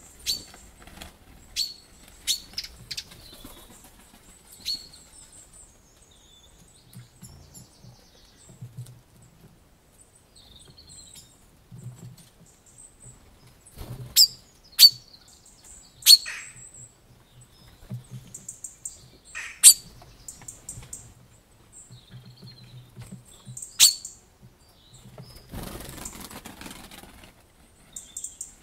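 Small wild birds calling, with scattered short, sharp high chirps, about five of them loud and close together in the middle of the stretch. Near the end comes a brief rustling rush.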